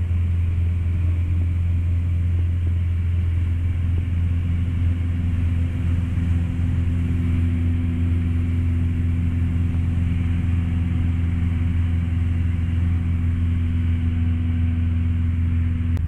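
Grob 109A motor glider's Limbach flat-four engine and propeller running at a steady cruise setting in flight, a constant deep drone.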